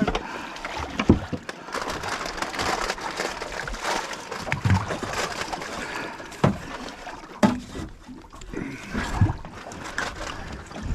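Water sloshing and slapping around a small aluminium boat, with scattered irregular knocks and clunks.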